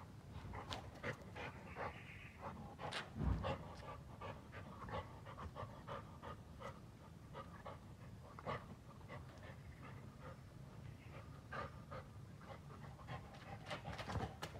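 Golden retriever panting softly while it sniffs at a crab, with many light, irregular ticks and taps and a low thump about three seconds in.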